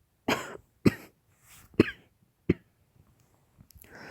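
A woman coughing hard: four sharp coughs in about two and a half seconds, with softer ones between, the cough of a COVID-19 illness.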